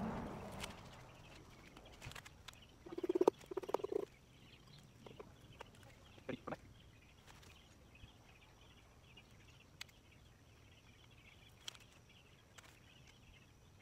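Mostly quiet, with a faint chorus of calling frogs. About three seconds in come two short, low pitched sounds, and a few light clicks and knocks follow.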